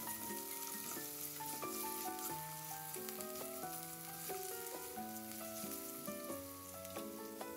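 Sliced potatoes sizzling in oil in a frying pan as a spatula stirs them, with a steady hiss. Background music with a stepping melody plays over it throughout.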